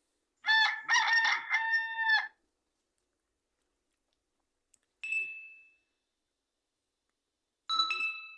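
Nokia 6020 mobile phone playing a ringtone through its small loudspeaker: a quick run of bright electronic notes for about two seconds, then two single chiming notes that die away, one about five seconds in and one near the end.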